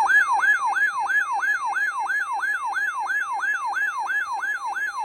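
Weather alert radio's electronic siren alarm: a tone that jumps up and glides back down about three times a second, over a steady lower tone, signalling an incoming warning.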